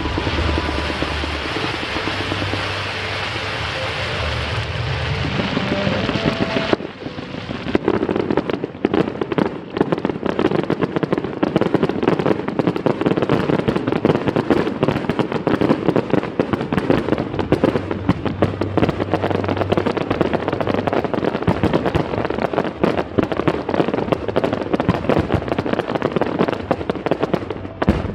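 Fireworks display going off, a dense run of rapid crackles and bangs that starts suddenly about seven seconds in and keeps up without a break.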